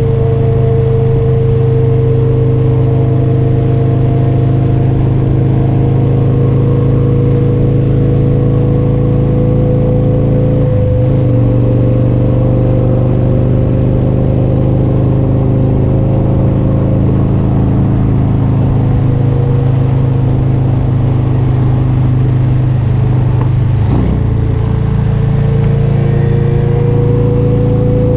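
Motorcycle engine running steadily under way, its note slowly rising in pitch, with two brief breaks in the engine sound about eleven and twenty-four seconds in.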